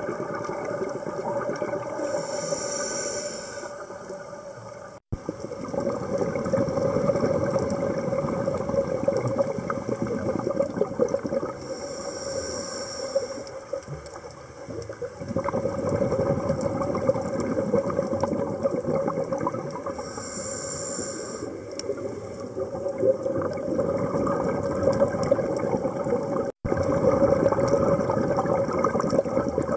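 Scuba regulator breathing heard underwater: three short inhalation hisses about eight to nine seconds apart, each followed by a long rush of crackling exhaled bubbles.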